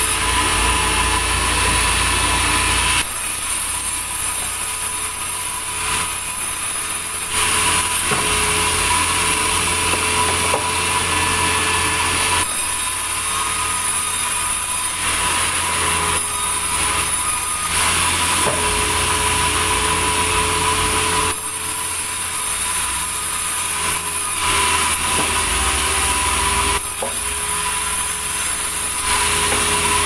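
Large sawmill band saw running and cutting through a big log: a steady machine tone over the noise of the blade in the wood. The sound shifts abruptly every few seconds.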